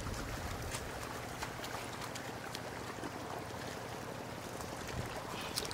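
Shallow water sloshing and trickling around a cast net of live catfish and snakehead fish as it is pulled through the water, with many small scattered splashes and clicks and a slightly stronger splash near the end.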